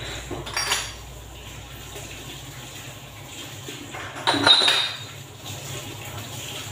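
Dishes and kitchen utensils clinking against a stainless steel bowl of water as they are washed by hand, with a short clatter near the start and a louder one with a brief metallic ring about four seconds in.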